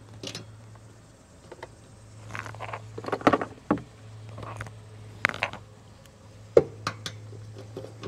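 Small metal clicks, taps and scrapes of screws and a screwdriver as the burner assembly is screwed back into an RV water heater, coming in irregular clusters over a steady low hum.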